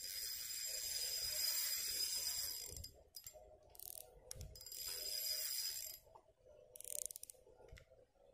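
Fishing reel being wound, a ratcheting whirr in two spells: the first about three seconds long, the second a little over a second, with a few short clicks between them and a brief burst about seven seconds in.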